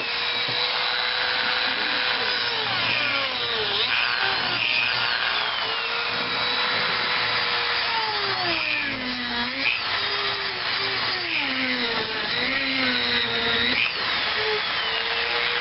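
Power tool cutting into the soft, epoxy-like potting compound of a CDI unit. The motor runs at a steady pitch with a rasping grind over it, and sags in pitch three times as the cut loads it down: about 4 seconds in, around 9 to 10 seconds in, and again around 12 to 13 seconds in.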